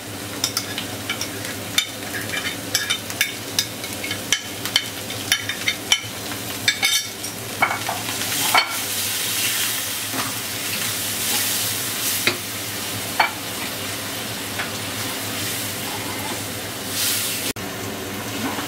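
A spatula stirring and scraping fried onion paste and yogurt-based masala in a hot pan, with quick clicks against the pan over a steady sizzle. The clicks thin out after about eight seconds, leaving mostly sizzling with an occasional scrape. This is the masala being stir-fried (kosha) to make the curry gravy.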